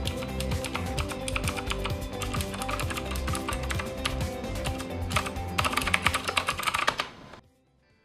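Typing on a Nimxo K006 mechanical keyboard with Nimxo blue switches: a rapid stream of sharp keystroke clicks, growing louder and busier about five and a half seconds in, then stopping about seven seconds in. Background music plays underneath.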